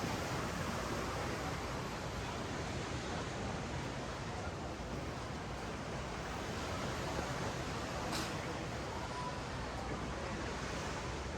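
Ocean waves washing up and down a sandy beach: a steady, even wash of surf, with a faint click about eight seconds in.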